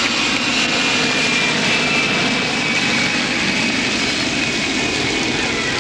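Steady loud engine roar with a faint high whine that slowly falls in pitch.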